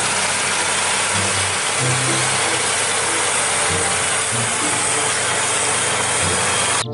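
Tractor running: a steady, dense mechanical noise with low engine tones that shift in pitch. It cuts off abruptly near the end.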